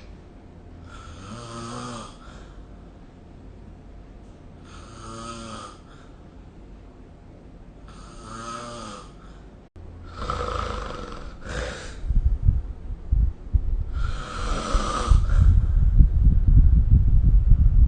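A sleeping person snoring: five long, pitched snores, one every three to four seconds. About two-thirds of the way through, a low, rough rumbling noise comes in under the snores and grows until it is the loudest sound near the end.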